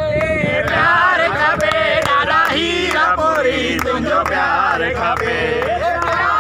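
A crowd of men chanting and singing together, many voices overlapping, with sharp beats through it.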